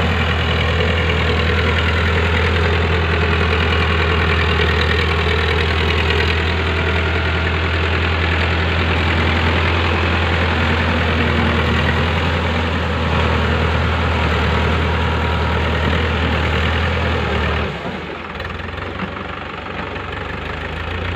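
Powertrac Euro 55 tractor's diesel engine running steadily under load while driving a rotavator through flooded paddy mud, a loud, steady low drone. About three quarters of the way through, the sound changes abruptly and drops a little in level.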